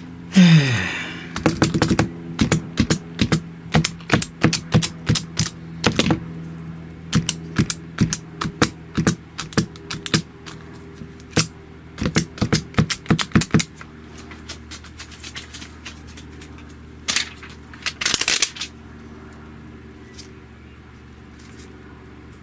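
Rapid sharp clicks and taps of small hard plastic parts being handled, two or three a second for about twelve seconds, then two short clattering bursts, from a replacement phone screen protector kit being unpacked and set up. A steady low hum runs underneath.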